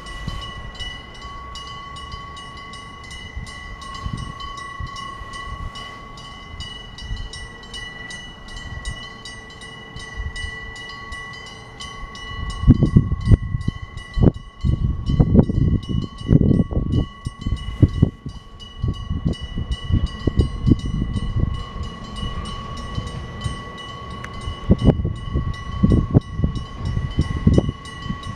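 Electric-bell level crossing bell ringing without a break, a rapid metallic striking over a steady ringing tone. About halfway through, and again near the end, a train crosses, its wheels knocking heavily over the rail joints.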